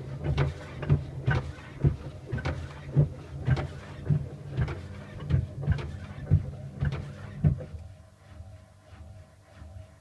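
Washing machine knocking and banging about twice a second over a steady low motor hum. The knocking stops a little before the end.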